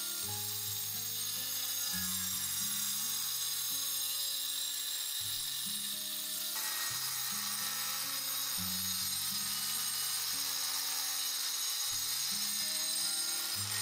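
Electric angle grinder with a cutting disc running and cutting through the wall of a large glazed ceramic pot: a steady high whine and grinding, which turns harsher about six seconds in. Background music with a plucked melody plays under it.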